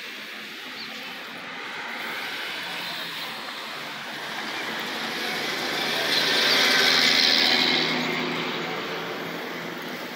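A motor vehicle passing close by: engine hum and tyre hiss build over several seconds, peak about seven seconds in, then fade.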